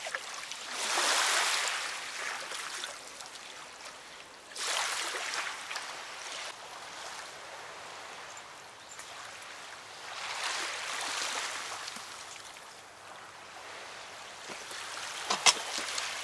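Small river waves washing onto a sandy bank in three slow swells a few seconds apart, with quieter lapping between them. A sharp click near the end.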